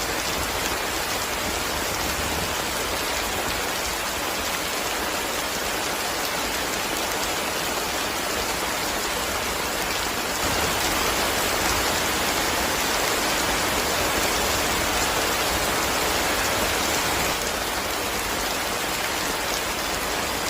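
Heavy rain drumming on a tin roof, a steady dense hiss of drops that grows a little louder for several seconds past the middle, then eases back.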